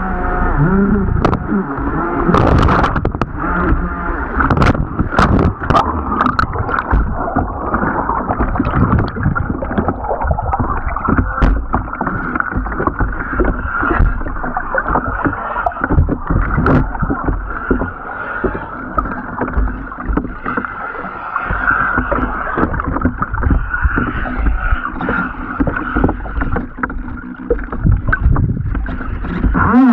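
Radio-controlled jet boat running on a river: a steady motor whine with water rushing and splashing, and many sharp knocks and clicks, most of them in the first several seconds.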